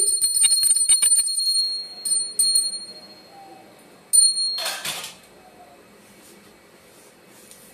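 Small puja hand bell rung quickly for about a second and a half, with a high, steady ringing. A few separate strokes follow that ring on, the last about four seconds in. A short scraping, rustling burst comes just after, then the ringing stops.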